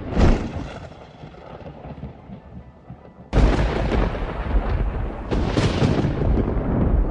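Thunder: a sharp crack that rolls away over a few seconds, then about three seconds in a loud, heavy rumble of thunder that keeps going, with another crack around five and a half seconds.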